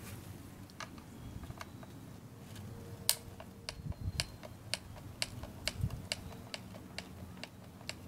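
Hand screwdriver backing out the side mounting screws of a motor controller mount: a string of sharp, irregular metal clicks, closer together from about three to six seconds in.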